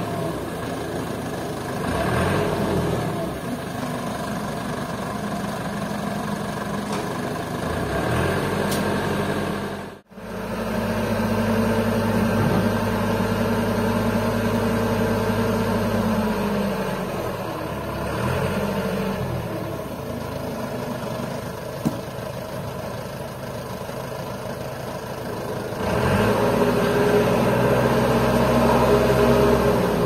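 Truck engine running to power a truck-mounted hydraulic crane as it lifts a teak log, its speed rising and falling several times with the lifting. It is loudest in the last few seconds and briefly cuts out about ten seconds in.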